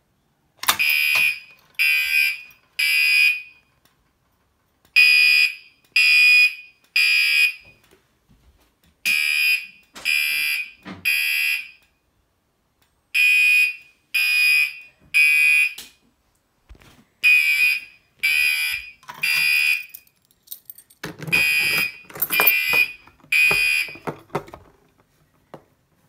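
Gentex Commander 3 fire alarm horn on its mechanical horn tone, sounding in the temporal-3 evacuation pattern: groups of three short blasts with a pause between each group, repeating about every four seconds. It falls silent near the end.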